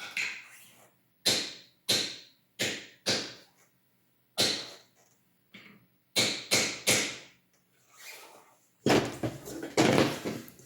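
Hammer strikes driving a plug into a 3D-printed plastic paintball trigger frame: about eight sharp blows in an uneven rhythm, followed by a short stretch of scraping and handling.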